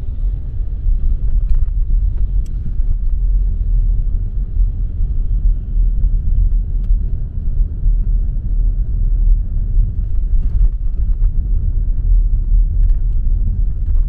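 Steady low rumble of a car being driven, heard from inside the cabin: engine and tyre road noise.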